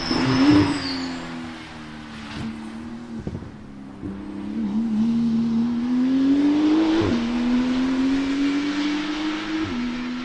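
Porsche 991 GT2 RS test car's twin-turbo flat-six passing close, then fading as it slows for a corner, with a couple of pops. It then accelerates hard away, its engine note rising steadily with two quick upshifts, the second near the end.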